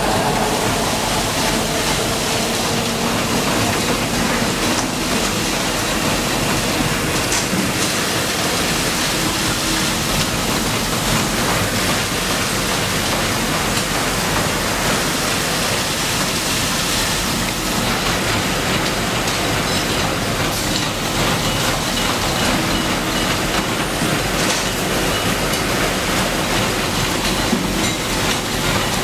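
Automatic multi-layer stator coil winding machine running, its spindle spinning to wind wire onto the coil forms, with a steady, loud mechanical noise from it and the surrounding winding machines.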